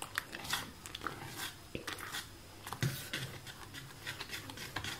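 A hand squelching and swishing through thick, foamy homemade dish wash (shampoo base, salt and water) in a plastic bowl, with irregular wet squishes as it is mixed.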